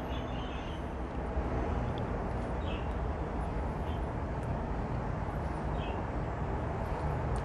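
Steady low outdoor background rumble with no distinct events. The wooden stick picking hair off the rubber glove is not heard above it.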